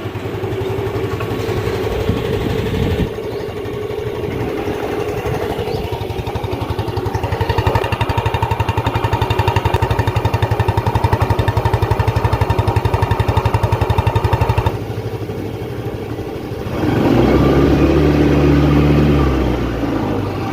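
Yamaha Fascino 113 scooter's single-cylinder engine running just after a self-start, idling and being revved. It grows louder for several seconds in the middle, drops back, then rises again in a short rev near the end.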